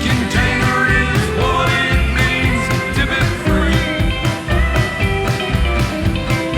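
A country-rock band playing live: guitars, pedal steel, upright bass and drums, with a steady drum beat and bending, gliding lead lines.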